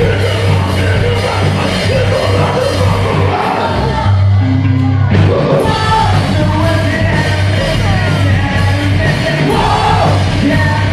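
Live rock band playing loud: shouted, sung lead vocal over distorted electric guitar, electric bass and drum kit. The cymbals drop out for about a second around four seconds in, leaving the bass, then the full band comes back in.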